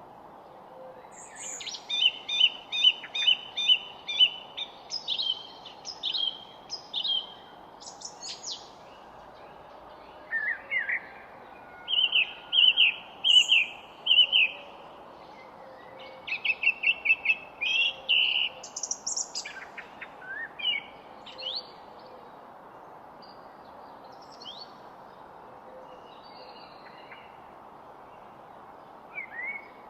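Songbirds singing in a garden: phrases of rapid repeated chirps and trills, dense at first and thinning to a few faint calls near the end, over a steady low background hiss.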